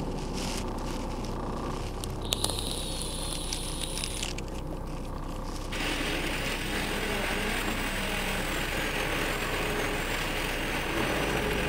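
Power drill turning a step drill bit to widen a hole in a car's sheet-steel tailgate from 6 mm toward 8 mm. A short high motor whine comes a couple of seconds in. From about halfway, a steady cutting noise runs with a whine that rises and falls as the bit bites.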